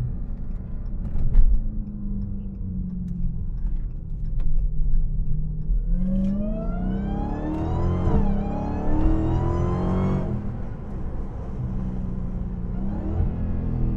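Dodge Hellcat's supercharged 6.2-litre HEMI V8, breathing through a Legmaker cold air intake, accelerating hard from about six seconds in. The engine note and a high supercharger whine climb together, dip at a quick upshift about eight seconds in, climb again, then fall back as the throttle is lifted near ten seconds. Before that it cruises at a steady note.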